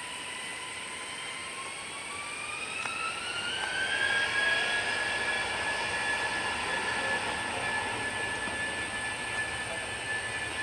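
Airbus A320-200's jet engines spooling up for the takeoff roll: a whine rises in pitch over the first few seconds, getting louder, then holds steady at takeoff power as the airliner accelerates down the runway.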